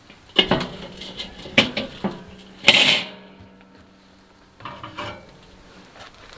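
Steel cooking grate clanking against the rim of a charcoal kettle grill as it is set into place: several metallic knocks, the loudest about three seconds in, with the grate ringing for a few seconds after, then a couple of fainter knocks as it settles.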